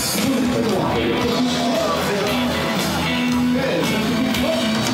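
Music with a guitar and held melodic notes, playing steadily.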